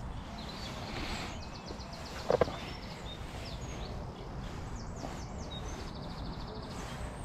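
Small birds singing: quick trills of evenly repeated high notes and short chirps, over a steady low rumble. About two and a half seconds in, a sharp double knock stands out as the loudest sound.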